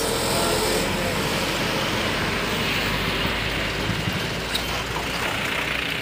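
Mercedes-Benz coach's diesel engine and tyres rumbling as it drives off through traffic, with steady road noise. The deep rumble eases off about four seconds in.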